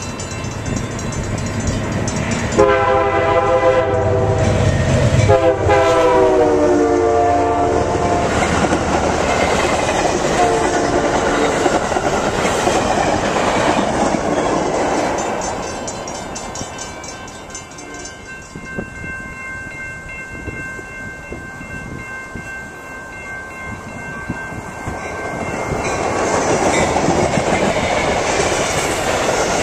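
Amtrak Pacific Surfliner passenger train sounding its horn in two long blasts as it approaches, the second one falling in pitch as the train goes by. Then the cars rumble and clatter past on the rails. Near the end another passenger train rolls past close by.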